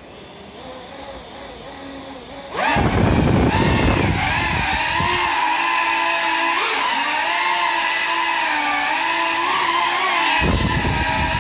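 Ducted FPV quadcopter's brushless motors and propellers, flying on broken props: a low hum at idle, then about two and a half seconds in a sudden throttle-up to take off, becoming a loud buzzing whine whose pitch rises and falls with the throttle. A low rush of air comes with the takeoff and again near the end.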